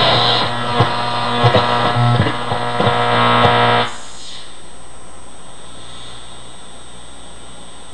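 AM tube radio being tuned across the band: guitar music comes through with distortion, crackles and gliding whistles, then about four seconds in it cuts off to a steady hiss between stations. The poor AM reception shows in the noise and distortion.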